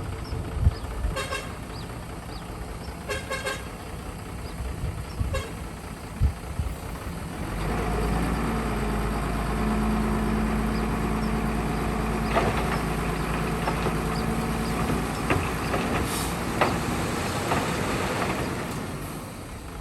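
A vehicle horn gives a few short toots, with a couple of knocks in between. Then, about seven seconds in, a heavy diesel engine comes up louder and runs steadily at a constant pitch.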